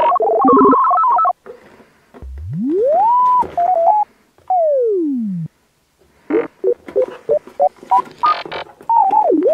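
Playful electronic synthesizer music made of pure sliding tones: a long rising whoop about two seconds in, a long falling slide around the middle, then a run of quick short beeps and stepped notes.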